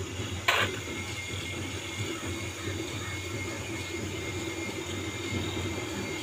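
A steady low mechanical rumble, with one sharp knock about half a second in.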